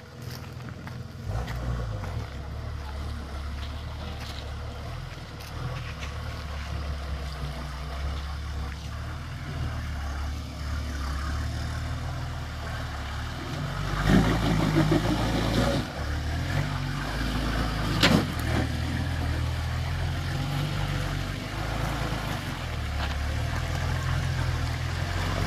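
Nissan Patrol ute's engine working under load as it crawls up a steep, rutted washout, its revs stepping up and down. The revs climb loudly for about two seconds around the middle, and a single sharp knock follows shortly after.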